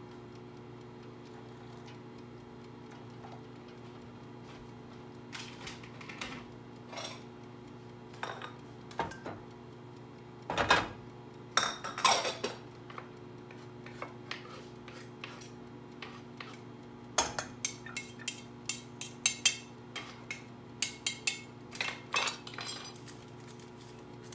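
Kitchen dishes and utensils clinking and knocking on a counter, in scattered strikes that thicken into a quick run of clinks near the end, over a steady low hum.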